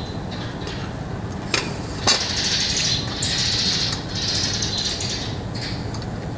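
Parts of an artificial Christmas tree and its stand being handled: two sharp knocks about one and a half and two seconds in, then a few seconds of scraping and rustling.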